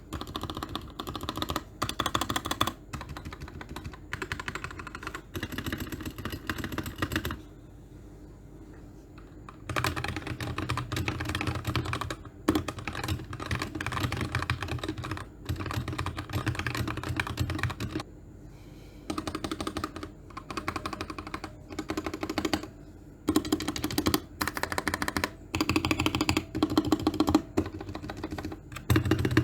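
Gateron Black Ink V2 linear mechanical keyboard switches being pressed in fast runs of keystrokes, clacking densely, with short pauses about seven seconds in and again around eighteen seconds.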